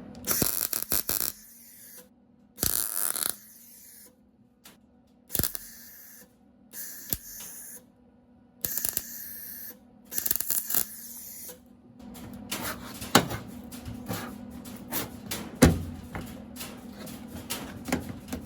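MIG welder tacking a sheet-steel patch panel into thin, rusted car-body metal with the heat turned down a little. About six short crackling bursts, each under a second, come with pauses between them, then a longer stretch of quieter, steady crackle in the second half.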